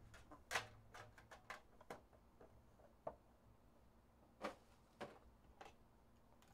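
Faint clicks and taps of a Panini Immaculate trading-card box being handled: its lid lifted off and the small card box inside taken out. There is a quick run of clicks in the first two seconds, the loudest about half a second in, then a few scattered single taps.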